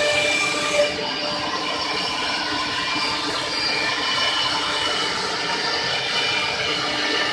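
Three-spindle CNC wood router running, a steady hissing machine noise with several high whining tones over it. A brief sharp knock a little under a second in.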